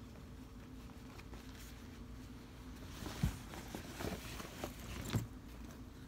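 A leather jacket being handled and turned: rustling of the leather and satin lining, with a few short knocks between about three and five seconds in, the loudest about three seconds in.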